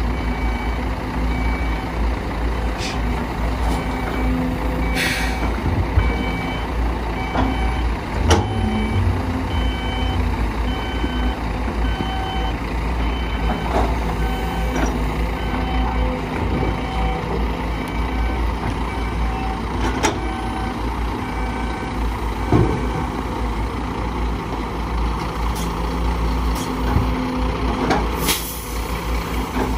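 Diesel engines of a CASE CX210B excavator and a dump truck running steadily, with a vehicle backup alarm beeping over them in a steady repeating pattern for much of the stretch. A few sharp knocks stand out, about five, eight, twenty and twenty-eight seconds in.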